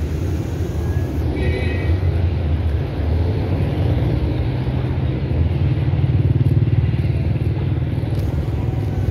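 Road traffic: cars driving past close by, a steady low engine and tyre rumble that swells around the middle, with a brief high tone about a second and a half in.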